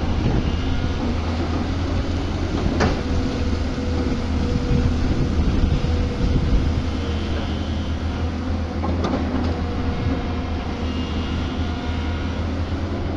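Excavator's diesel engine running steadily with a low, even hum, with a sharp knock about three seconds in and another about nine seconds in.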